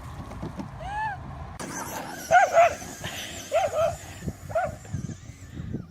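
A dog barking: about six short barks, one about a second in and the rest mostly in quick pairs.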